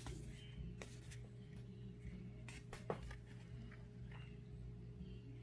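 Faint handling of a stack of 1987 Fleer baseball cards: a few soft flicks and slides of card stock as cards are moved through the stack, the clearest one about three seconds in, over a steady low hum.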